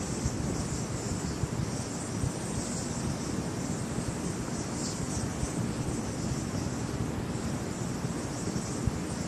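Wind buffeting the microphone in a steady low rumble, with a high-pitched insect chirring that swells and fades every second or so.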